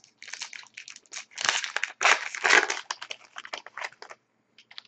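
Plastic trading-card pack wrapper crinkling and being torn open, a run of dense crackles that is loudest in the middle.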